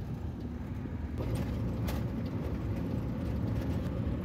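Small pickup's engine and road noise heard from inside the cab as it drives along, getting a little louder about a second in as it picks up speed. A single sharp click comes about two seconds in.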